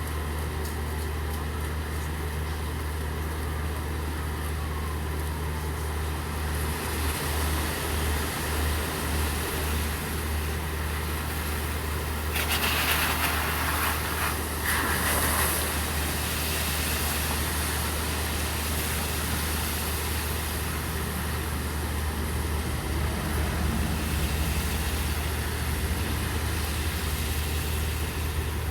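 Rain hissing steadily over the low, steady hum of an idling vehicle engine. About halfway through, a louder rushing hiss swells for about three seconds, then settles back.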